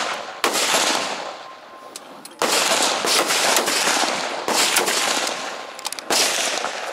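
Four rifle shots, roughly two seconds apart, each a sudden sharp report that trails off in a long echo across the range. They come from other rifles on the line, not the camera wearer's own.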